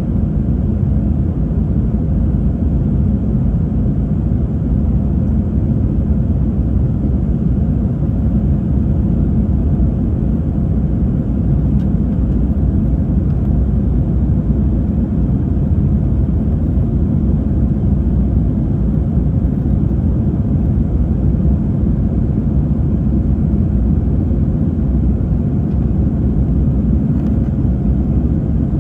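Steady, loud cabin rumble of an Airbus A321 airliner, the noise of its jet engines and rushing air heard from inside the passenger cabin.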